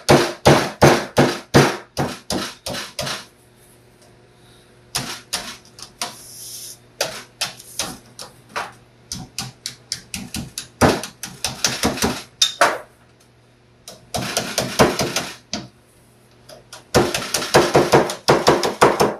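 Hammer making light, quick taps on the edge of a sheet of metal, bending it down over a table edge to fold a seam. The taps come about four or five a second in several bursts with short pauses between them.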